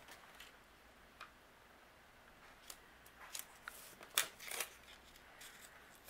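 Faint rustles and light taps of a thin plastic stencil and a paper tape mask being handled and set down on a craft mat, loudest about four seconds in.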